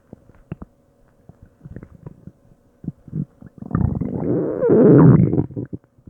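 A person's stomach and intestines gurgling as they digest food. Scattered small pops and bubbles give way, a little past halfway, to a loud, drawn-out growl with a wavering pitch that lasts about two seconds.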